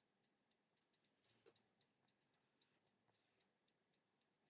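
Near silence with faint, regular ticking, about four ticks a second.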